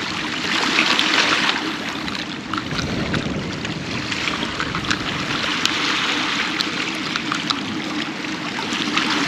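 Choppy inlet water sloshing and washing against rocky shoreline, with wind buffeting the microphone in a steady rushing noise.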